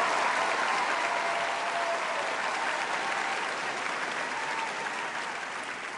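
Studio audience applauding and cheering, loudest at first and slowly dying down.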